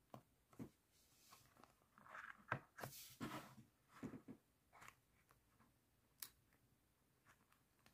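Thin clear plastic wrapping sheet crinkling as it is handled and peeled back by hand. The crinkles are loudest about two to four and a half seconds in, with scattered small clicks before and after.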